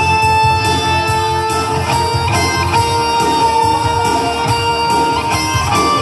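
Live pop band playing an instrumental passage without vocals: electric guitar and keyboard over a steady beat and bass, with long held notes.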